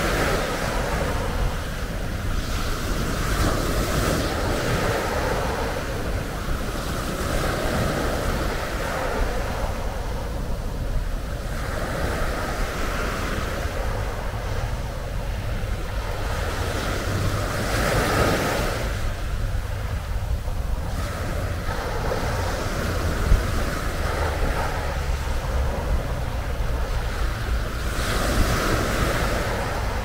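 Sea waves breaking on a pebble beach and washing back, swelling and falling every few seconds, with a steady rumble of wind on the microphone. A single brief click sounds about two-thirds of the way through.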